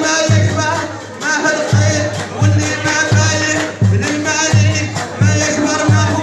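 Music with a strong, steady low beat of about one and a half beats a second and a singing voice over it.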